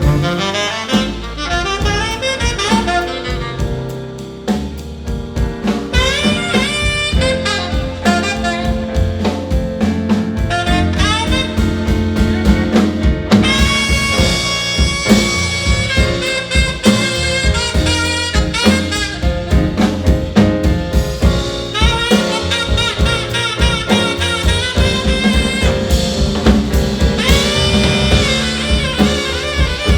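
A live jazz band plays an instrumental break: a horn takes a solo over a walking bass and drum kit keeping a steady swing beat.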